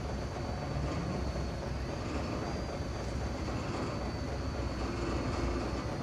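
Diesel engine of heavy construction machinery running steadily: a continuous low rumble.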